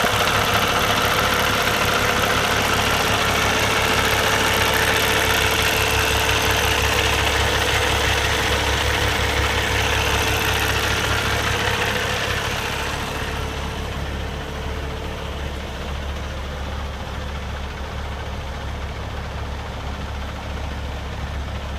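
Cummins ISX inline-six diesel engine in a Peterbilt 388 highway tractor idling steadily. About two-thirds of the way through, the sound becomes quieter and duller as the higher hiss fades, while the low idle continues unchanged. The engine is running healthily.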